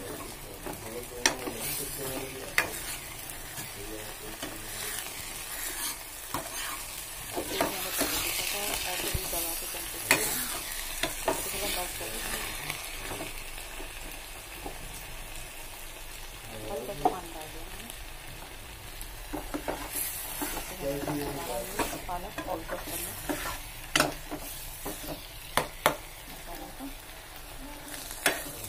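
A steel ladle stirring and scraping a thick spinach masala that is frying with a steady sizzle in a pan, with sharp clicks now and then as the ladle knocks against the pan.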